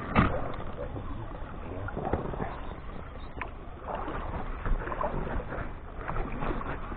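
Water sloshing and oar strokes as a small boat is rowed, with a sharp knock against the boat about a quarter second in and a few lighter knocks later.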